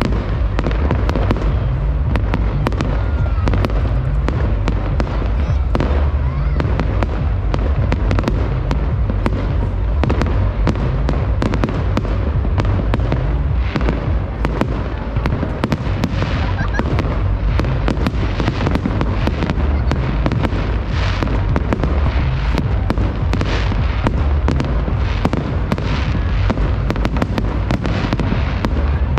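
Fireworks display in a continuous barrage: many shells bursting with booms, closely packed bangs and crackling.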